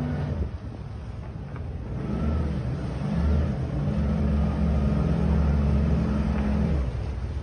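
Motorboat engine running, getting louder about two seconds in, holding steady, then dropping back just before the end.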